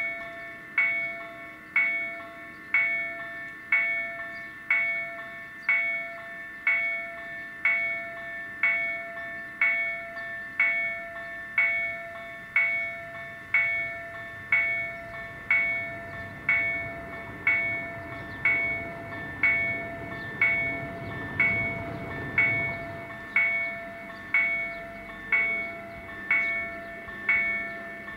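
Level-crossing warning bell ringing in evenly spaced strikes, about one a second, each a bright multi-tone ring that decays before the next, while the barriers are down. A low rumble swells and fades under the bell in the middle.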